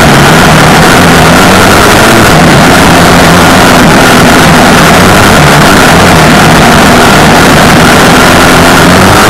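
Off-road vehicle engine running steadily on a trail, very loud and distorted, with a dense rushing noise over it and small shifts in engine pitch.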